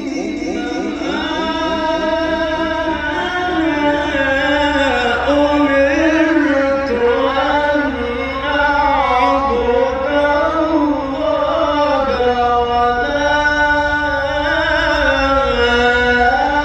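A man chanting Quran recitation in the melodic Egyptian tajwid style, holding long ornamented notes whose pitch winds up and down with a fast waver, phrase after phrase without pause.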